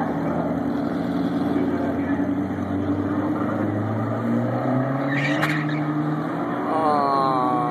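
Drag race cars idling at the starting line, their engines running steadily. A short hiss comes about five seconds in, and near the end one engine revs up sharply with a rising pitch.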